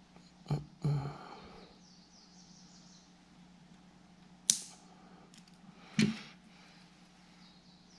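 Sharp clicks and knocks from fitting wire ends into a small lever-type wire connector at a metal wall back box, four in all: two close together near the start, then a sharper one a little past halfway and another about a second and a half later. A steady low hum runs underneath.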